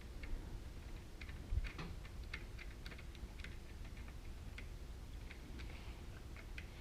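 Small irregular clicks and light metallic taps of hand tools and terminal hardware being worked at a motorcycle battery terminal, with one soft thump about a second and a half in.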